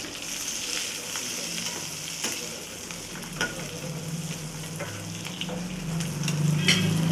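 Shallots, roasted gram, spices and coconut sizzling in oil in an iron pan as they are stirred and sautéed, with scattered clicks of the spatula against the pan. A low hum builds in the second half.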